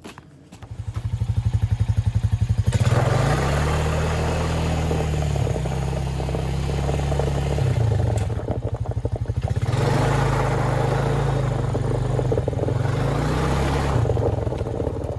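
Honda Rancher 350 ATV's single-cylinder four-stroke engine running as it drives on ice on studded rear tyres. The engine picks up about half a second in and revs up twice, about three seconds in and again near ten seconds, with a rougher rush of noise during each push.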